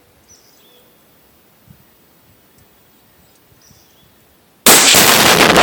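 A few faint high chirps over a quiet lull, then, about four and a half seconds in, a sudden, very loud tannerite explosion blowing apart a washing machine, its blast still going at the end.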